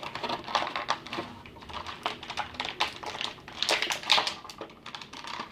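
Toy packaging being handled and opened by hand: plastic and cardboard crackling with quick, irregular clicks.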